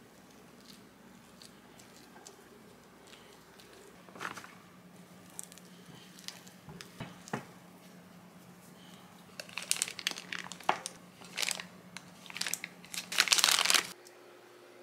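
A silicone spatula scraping and stirring soft cookie dough in a glass bowl. In the last few seconds a plastic piping bag crinkles loudly in a run of short bursts as it is handled and squeezed.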